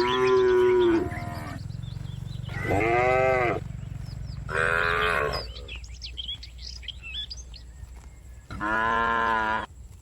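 Cattle mooing: four separate drawn-out moos, each about a second long, the last one coming after a pause of about three seconds.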